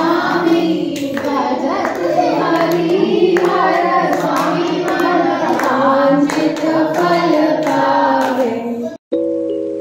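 Devotional hymn sung by voices, with hands clapping along in a steady beat. About nine seconds in it cuts off and a few bell-like notes follow.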